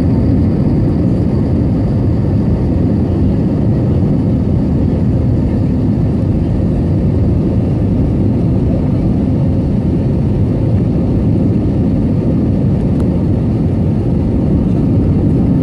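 Airbus A320neo cabin noise on final approach, heard from a window seat beside the engine: a steady, loud rumble of the engines and the air rushing past the airframe.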